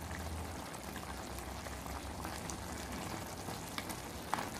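Crab roast masala sizzling softly in the pan, with a couple of short clicks of a spatula against the pan near the end as it goes in to scoop the crab out.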